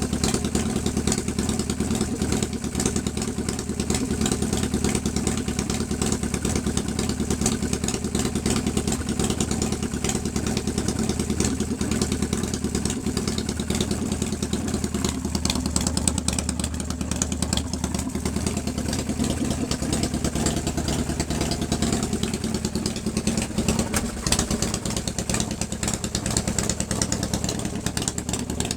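1997 Harley-Davidson Fat Boy's 1340 cc Evolution V-twin running steadily at idle. It is running fine now that fuel has reached the Mikuni carburettor's float bowl, which had run dry.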